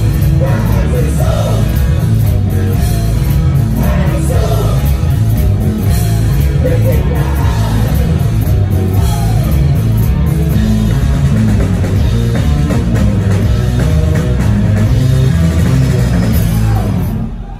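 Live rock band playing loudly through the stage PA, with electric guitars, drum kit and singing. The band stops together just before the end.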